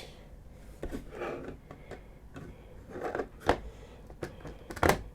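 Hard plastic 3D-printed parts being handled and fitted together: a few sharp clicks and knocks, the loudest near the end, with soft rustling between them.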